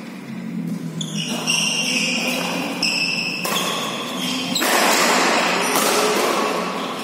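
Sounds of a badminton doubles rally: racket strikes on the shuttlecock and players' shoes moving and squeaking on the court floor.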